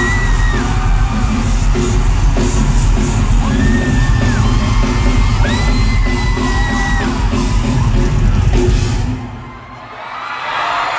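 Live rock band playing loud, with heavy bass and drums and long held high notes over them, and the crowd yelling along. The band stops about nine seconds in, and crowd cheering swells near the end.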